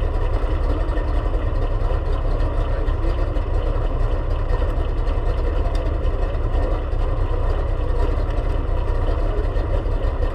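Race car engine idling steadily, heard from inside the cockpit while the car sits stopped in the pits.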